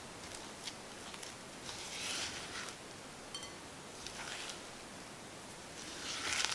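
Silicone spatula folding cocoa powder into thick melted-chocolate batter in a glass bowl: soft scraping, squishing strokes, with three louder sweeps about two seconds apart and a few light ticks of the spatula against the glass.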